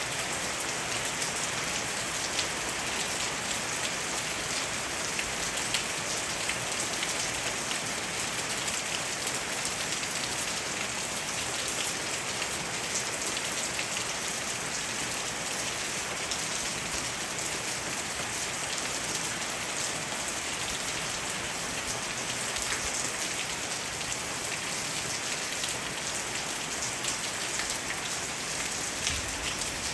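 Steady rain falling on a roof and on leaves, many separate drops tapping through an even hiss.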